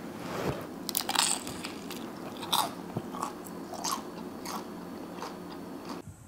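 Biting and chewing on a piece of deep-fried turkey, with several sharp crunches spread through the chewing.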